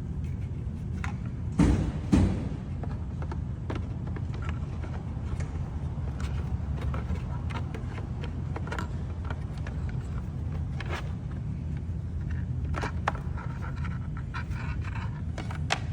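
Plastic clicks, taps and handling noises as a turn-signal lamp is fitted back into a motorhome's side-camera housing, with two louder knocks about two seconds in, over a steady low hum.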